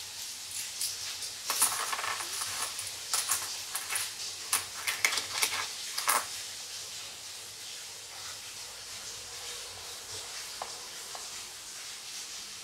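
Loose metal coins clinking and jingling as they are handled on a desk. A flurry of sharp clinks comes over the first six seconds or so, then it goes quiet apart from faint hiss.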